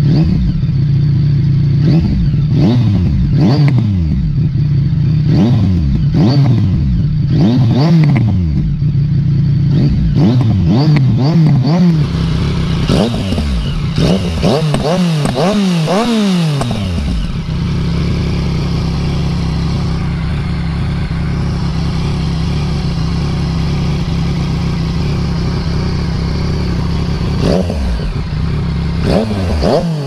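Yamaha XSR900's three-cylinder engine through a Termignoni exhaust, revved with repeated quick throttle blips, each rising and falling back. The blips run close together and build to a longer rev, then the engine settles to a steady idle for about ten seconds before a few more blips near the end.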